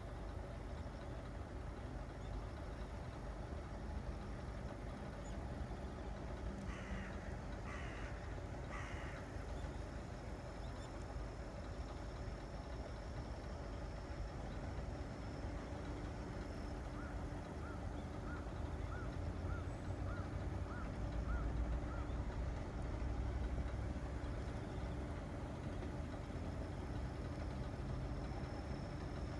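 A crow cawing three times, about a second apart, over a steady low rumble that swells briefly about two-thirds of the way through. Later a quick run of about ten short high chirps.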